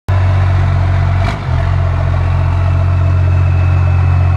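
1989 Dodge D250's 5.9-litre 12-valve Cummins diesel idling steadily through a 5-inch straight pipe and 8-inch stack: a low, even rumble. A short click and a brief dip in level come about a second and a half in.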